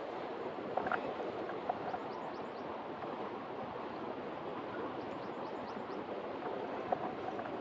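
Steady rushing of a mountain river flowing over rocks, with a few faint clicks about a second in and again near the end.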